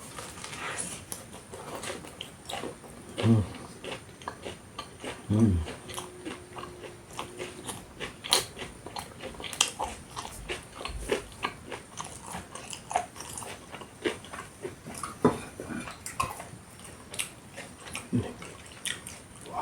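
Close-up eating of a tortilla wrap filled with beef rendang: biting and chewing, with many small wet clicks and mouth smacks, and two louder brief sounds about three and five seconds in.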